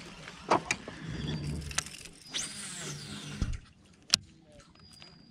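Baitcasting reel being cranked, a whir lasting a few seconds that stops about three and a half seconds in, with sharp clicks and a knock, the loudest about half a second in and another about four seconds in.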